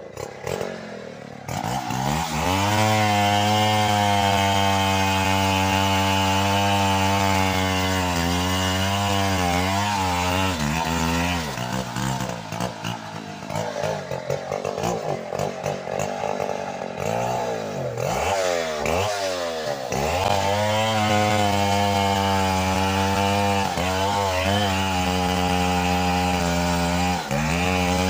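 Stihl two-stroke chainsaw cutting into the base of a tree trunk to fell it. It revs up to full throttle about a second and a half in and holds a steady high note through the cut. Around the middle the pitch sags, then swoops down and up a few times as the throttle eases and opens again, before the saw runs steadily at full throttle once more.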